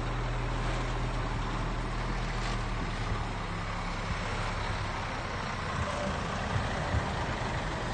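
Heavy diesel earthmoving machine running steadily with a low, even engine hum.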